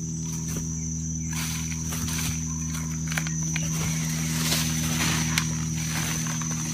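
Steady high insect whine over a low steady hum, with a few faint taps.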